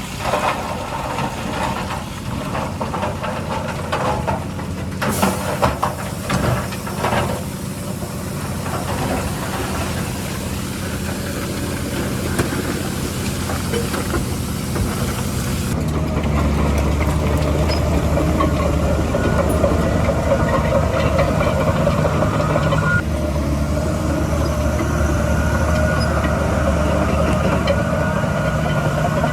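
Heavy diesel earthmoving machinery running steadily, with a few metal clanks about five to seven seconds in. About halfway through the engine sound changes abruptly to a louder, deeper running. A reversing alarm starts beeping near the end.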